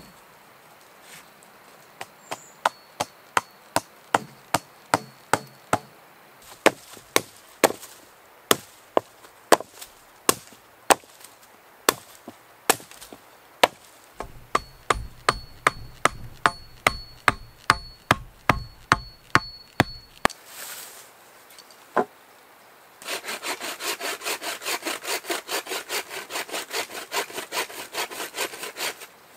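Large knife chopping into a wooden stick laid on a log, sharp knocks a little over two a second as a point is carved. Near the end, a wooden-framed bow saw cuts through a branch in quick back-and-forth rasping strokes.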